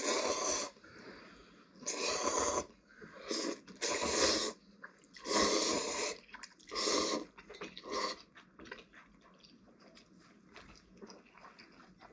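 People slurping instant ramen noodles: about seven loud slurps in the first eight seconds, then only quieter small eating noises.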